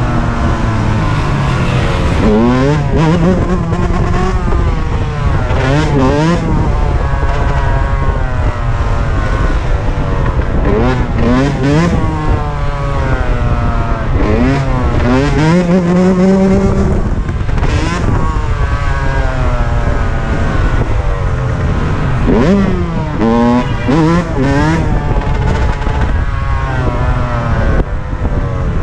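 Several dirt bike engines revving, their pitch repeatedly climbing and dropping, with overlapping revs from more than one bike.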